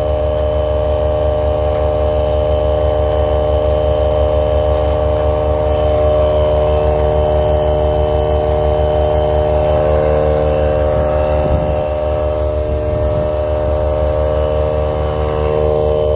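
Portable electric air pump (tire inflator) running steadily with a fast, even throbbing hum, pumping air into a leaking tire.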